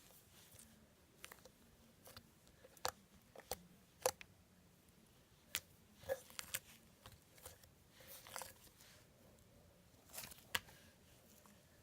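Crunchy slime being squeezed and pressed by hand, giving irregular sharp crackles and pops with quiet gaps between them, the loudest snaps about four seconds in and near the end.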